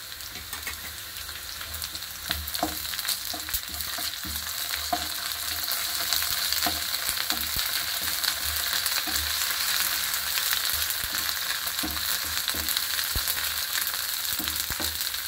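Onions and ginger-garlic paste sizzling in hot oil in a nonstick pan, stirred with a flat spatula that scrapes and clicks against the pan. The sizzle grows louder over the first few seconds.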